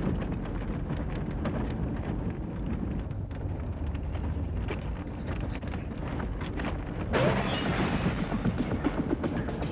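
Dramatic soundtrack with a dense low rumble full of rapid crackling clicks, then a sudden loud rushing burst about seven seconds in, after which a fast pulsing drum beat takes over.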